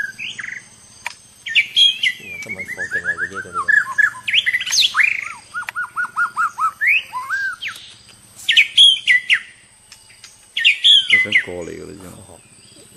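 White-rumped shama (murai batu) singing: a run of varied whistled phrases with rising and falling glides and quick trills, then short bursts of sharp, repeated chirps in the second half.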